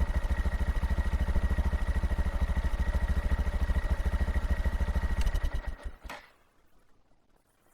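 Honda Monkey 125's single-cylinder engine idling with an even, rapid exhaust beat. About five seconds in the beat slows, fades and stops, leaving silence.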